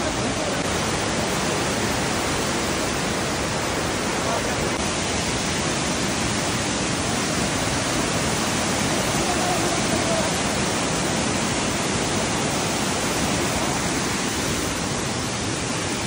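Steady rush of Amicalola Falls' lower cascades tumbling over boulders, an even wash of white-water noise.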